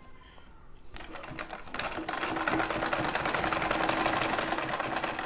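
Black domestic straight-stitch sewing machine sewing cotton fabric. It starts softly about a second in, then runs at a steady speed from about two seconds in, with rapid, even needle ticking.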